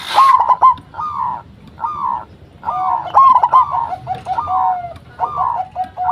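Zebra doves (perkutut) cooing in a lively song: short arched coo notes repeat about once a second, and a lower run of quicker notes joins in through the middle.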